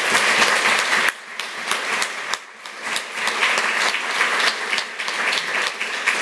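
Audience applauding, a dense patter of many hands clapping, strongest in the first second, easing a little, then picking up again.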